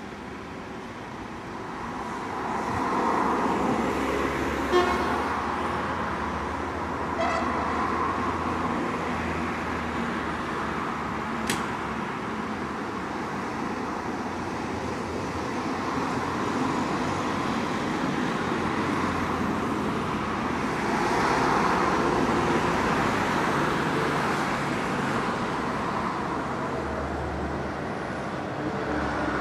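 Zillertalbahn diesel railcar running as it pulls away down the narrow-gauge track, its engine and wheel noise swelling and easing, with a couple of sharp clicks.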